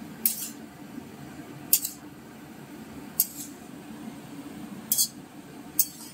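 A metal spatula scrapes a kadai five times, about every second and a half, while masala with tomato, turmeric and whole green chillies is stirred in hot oil. A steady low hum runs underneath.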